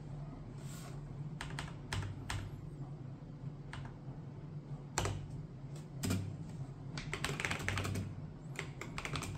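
Mechanical keyboard of a Micro Journal Rev.2.1 writing device: a few separate key presses, then fast continuous typing from about seven seconds in, over a steady low hum.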